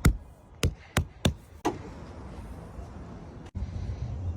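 Five sharp knocks in under two seconds, with hard material being struck or snapped into place during windshield installation work, followed by a low steady rumble.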